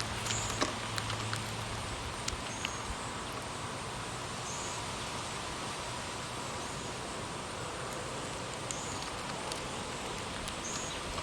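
Steady wind rustling, with a few short high chirps scattered through it and faint ticks.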